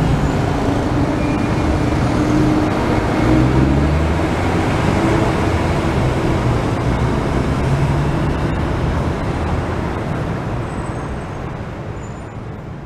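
Steady city street traffic noise with engine hum, as a monorail train passes on its elevated track overhead. The sound fades out near the end.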